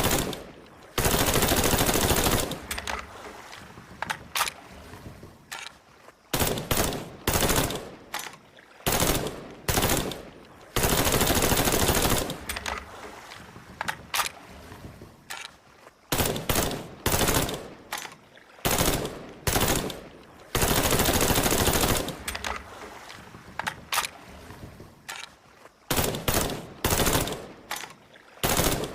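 Colt M16A1 rifle firing in 5.56 mm: long full-automatic bursts of about a second and a half, roughly every ten seconds, with shorter bursts and single shots between them, each trailing off in echo.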